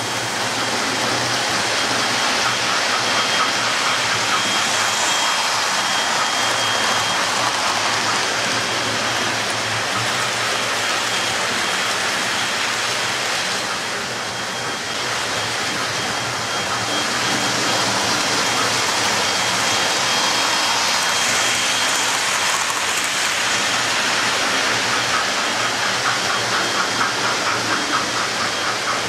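Model electric trains running on the layout's track: a steady rolling rattle of small metal wheels on rail with a thin high whine, and quick clicking over rail joints near the end as a train passes close.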